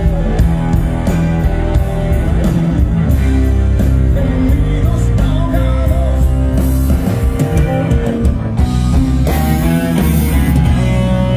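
A live rock band playing loud through a PA during a sound check: electric guitar over electric bass and a drum kit, with a bright cymbal wash about nine seconds in.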